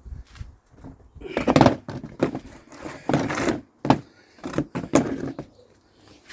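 Handling noise from working on a petrol strimmer: a series of short knocks, clunks and scrapes as parts are moved about.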